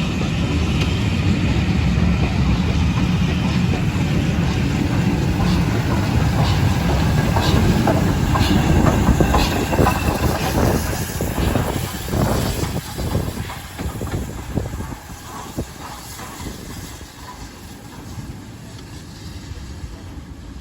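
Passenger train rolling slowly past, a steady low rumble with wheels clicking over rail joints. The rumble dies away about two-thirds of the way in as the train moves off.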